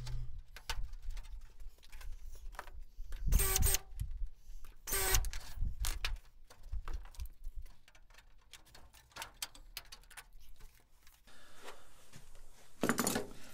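Sheet aluminium wing skin being pressed and worked by hand over Cleco-held ribs: scattered clicks and light metallic rattles, with two louder noisy bursts about three and five seconds in.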